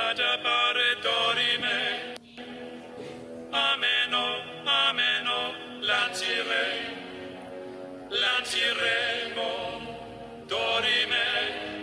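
Background music: a song with a sung vocal line in short phrases over a steady backing.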